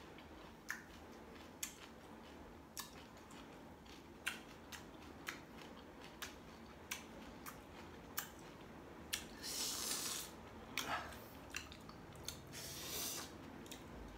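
Crunching and chewing of a crisp, seedless green Thai ambarella (cóc Thái): short sharp crunches about once a second, with two longer breathy hisses through the mouth in the second half.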